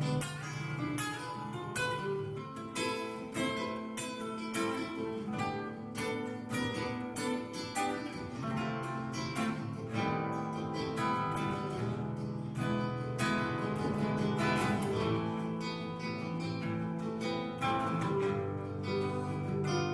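Background music played on acoustic guitar, plucked and strummed.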